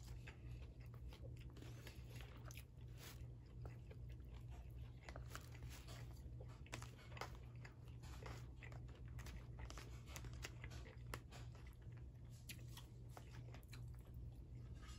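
Faint, close-up chewing and mouth sounds of someone eating beef kaprao fried rice, a stream of small irregular wet clicks. Mixed in are light scrapes and taps of a plastic fork and metal spoon in a plastic takeout tray.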